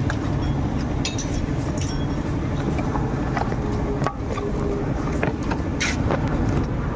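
Scattered metal clinks and knocks as the radiator fan assembly is worked loose from beneath the car, over a steady low rumble.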